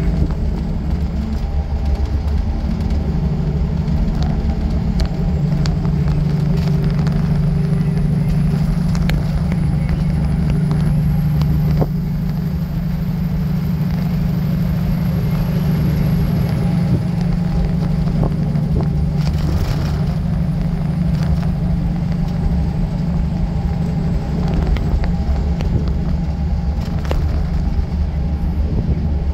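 Diesel semi truck's engine droning steadily at highway cruise, heard inside the cab, with tyre noise from the wet road.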